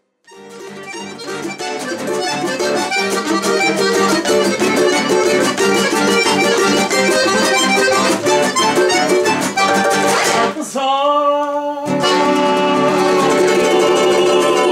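Button accordion (bayan), acoustic guitar and a second plucked string instrument playing together, the guitar strumming chords. The music fades in after a moment of silence, and about ten seconds in the strumming drops out under a held accordion chord before the full ensemble resumes.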